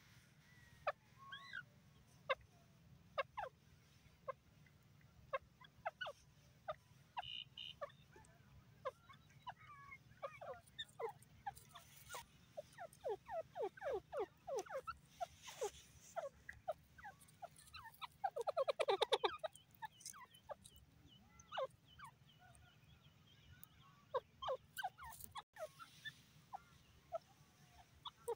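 Grey francolin giving short, soft clucking call notes in loose, irregular series, with one quick rapid run of notes about two-thirds of the way through.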